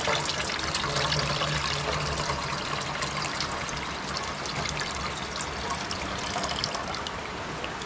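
Liquid pouring and trickling steadily.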